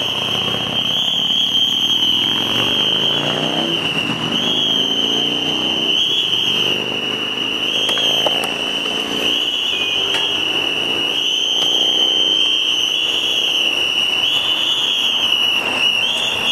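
Road traffic passing on a busy avenue, car engines rising and falling in pitch as they go by, under a steady high-pitched whine.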